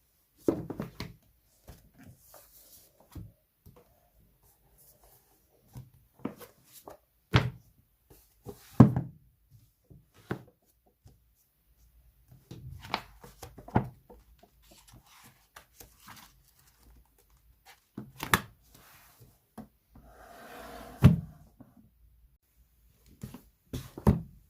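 Scattered thunks and taps of small objects being handled and set down on a hard surface, about eight separate knocks with quieter handling between them, and a short soft rustle a little past twenty seconds.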